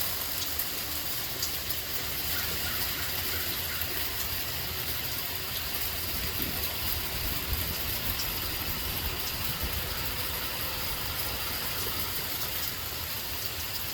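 Steady hiss of hail and rain falling, over a constant low rumble, with a few faint ticks scattered through.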